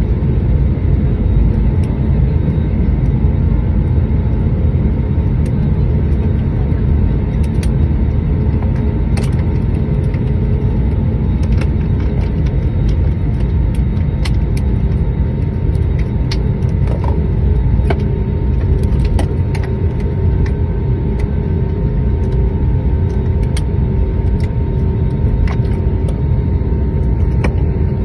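Jet airliner cabin noise on the runway after landing: a steady low rumble of the engines and rolling wheels, with a faint steady whine and scattered light clicks and rattles.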